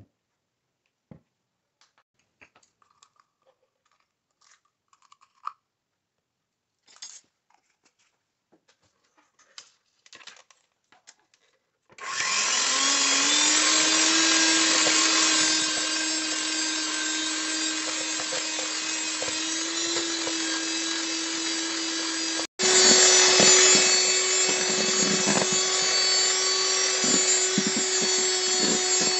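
A few faint clicks and taps, then about twelve seconds in a handheld electric mixer starts, its motor whining steadily as the beaters whip egg whites into a meringue foam. About ten seconds later it cuts out for an instant and comes back slightly higher and louder.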